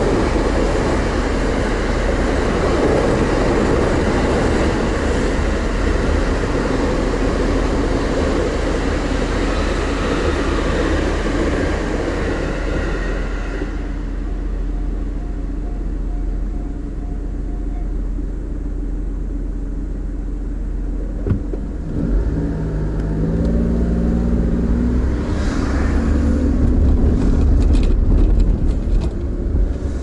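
A JR Tohoku Main Line electric commuter train rumbling past a level crossing, heard from inside a waiting car, dying away after about 13 seconds. The car's engine then idles, a click comes a little after 20 seconds, and the engine revs up with rising tones as the car pulls away over the crossing.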